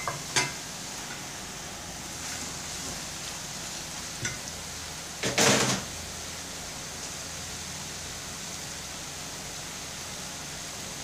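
Beef tripe pieces dropped into a pot of onions frying in oil and stirred with a silicone spatula: a steady sizzle, a couple of sharp knocks at the start, and one brief louder burst of noise about five and a half seconds in.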